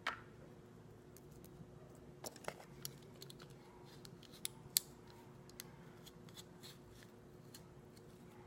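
Scattered sharp, sticky clicks from eating and handling aloe vera, the loudest two close together a little before the middle, over a faint steady hum.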